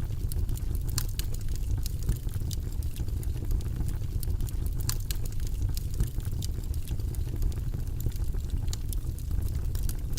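Wood fire burning in a fireplace: a steady low rumble of the flames with many small, irregular crackles and pops.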